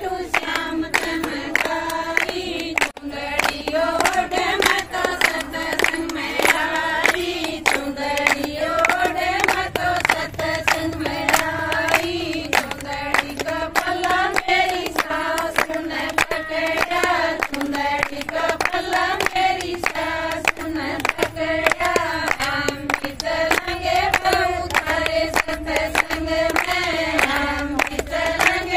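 Women singing a Haryanvi folk song, with a steady beat of hand-clapping throughout.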